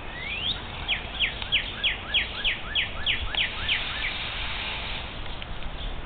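A songbird singing: one rising whistle, then a run of about ten quick down-slurred notes at roughly three a second, each trailed by a short lower up-slur, stopping about four seconds in.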